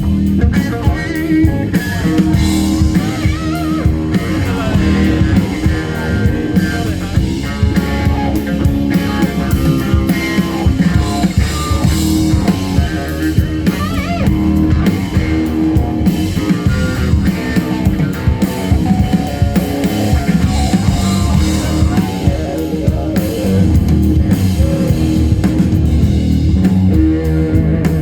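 Live rock-blues band: electric guitar playing over a drum kit, steady and loud throughout.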